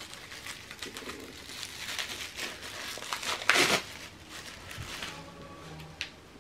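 Bubble wrap and a clear plastic sleeve being pulled off a small box by hand: crinkling and rustling, loudest a little past the middle as the bubble wrap comes free, then softer plastic crinkles and a light tap near the end.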